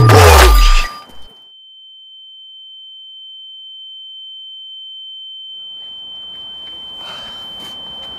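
A loud whooshing transition effect whose pitch falls steeply over about the first second, followed by a single steady high-pitched tone held on. Faint background noise fades in under the tone from about six seconds in.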